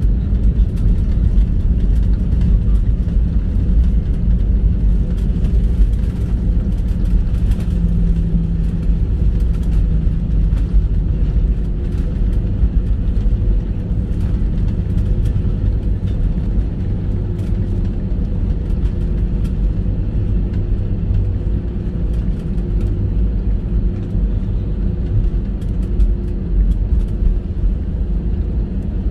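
Airliner cabin noise while taxiing after landing: a steady low rumble of the engines and the wheels rolling over the taxiway, with a faint steady hum and scattered faint clicks. It eases slightly toward the end.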